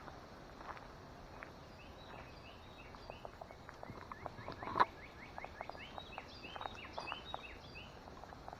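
Footsteps crunching on a woodland trail, one louder crunch near the middle. From about two seconds in, a bird sings a rapid run of short chirping notes.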